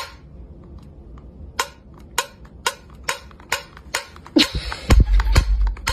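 The metal ring pull of a tin can is flicked with a finger, making a string of short, sharp clicks at about two a second. Louder thumps and handling noise come near the end.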